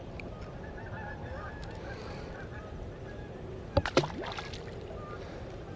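Faint, broken bird calls in the background over an even outdoor hush, with two short sharp knocks about four seconds in.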